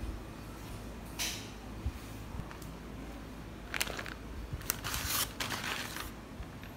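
A crumpled paper bag rustling and crinkling as it is handled and set down, in a few short spells about a second in and again from about four to five and a half seconds in, over a faint steady low hum.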